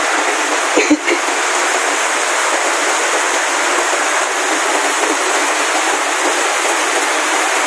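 Rain falling steadily, a loud even hiss with no let-up.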